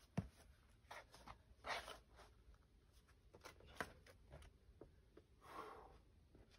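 Near silence broken by faint, scattered scuffs and rustles of a climber's shoes, hands and clothing against the rock, with one soft thump just after the start.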